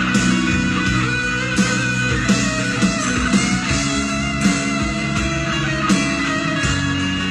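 A live rock band playing: an electric guitar lead line with bent, gliding notes over sustained bass and a slow drum beat.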